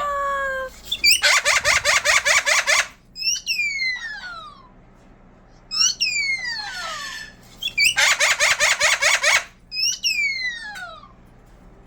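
A pet's repeated vocal routine, the "bomb drop, air raid siren": high whistle-like calls that glide steeply down in pitch, alternating with two spells of rapid pulsed chattering at about ten pulses a second.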